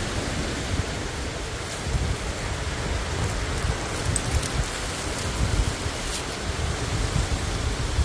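Steady outdoor noise with wind buffeting the microphone in uneven gusts, and a few faint ticks or rustles.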